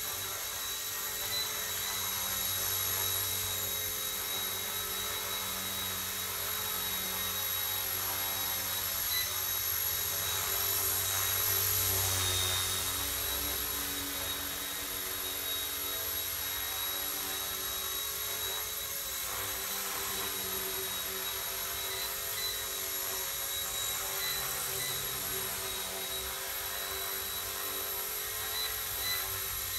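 ERA C138 Bell 206 RC helicopter running: a steady high-pitched electric motor whine over the hum of the spinning rotors, swelling slightly partway through.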